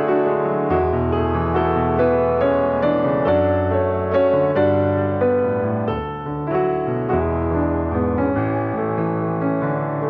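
Background music: a gentle piano piece, with a melody over sustained bass notes.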